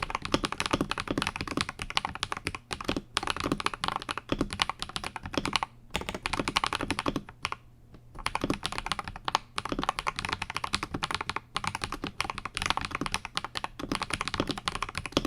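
Mechanical keyboard being typed on steadily: Akko 5075S with lubed Akko Radiant Red linear switches on a polycarbonate plate, the keystrokes coming in quick runs broken by short pauses.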